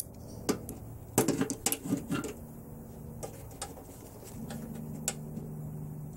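Metal clicks and clanks of a locking C-clamp being handled and clamped onto the folded edge flange of a car door skin, with a quick cluster of sharper knocks a second or so in and a few single clicks later. A low steady hum sounds underneath in the second half.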